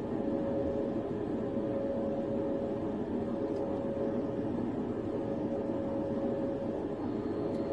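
Steady cabin noise inside a police patrol car: an even rumble and hum with a faint constant whine.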